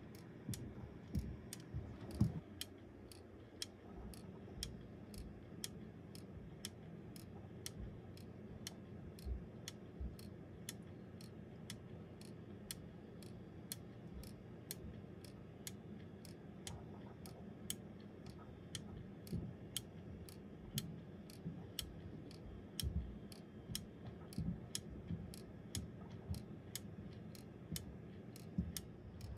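Wooden gear clock (a Magica wooden clock) ticking steadily, about two ticks a second, from its escapement. A louder knock comes about two seconds in.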